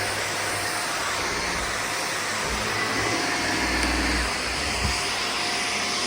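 Corded Shark vacuum cleaner running steadily, a constant rushing with a faint steady whine.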